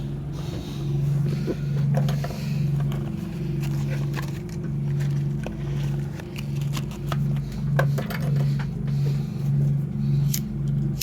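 A low motor hum that swells and fades about twice a second, with scattered light clicks and knocks.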